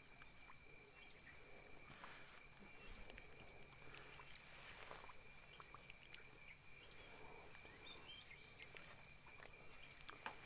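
Faint outdoor ambience of insects trilling steadily at two high pitches. About three seconds in comes a quick run of about six short high chirps, and near the middle a thin rising whistle.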